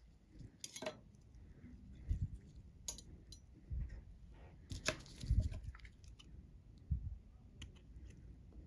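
Scattered light clicks and dull low thumps from gloved hands handling metal surgical instruments (a needle holder, then suture scissors) while sutures are tied and trimmed on a tabletop. The loudest cluster of clicks and a thump comes about five seconds in.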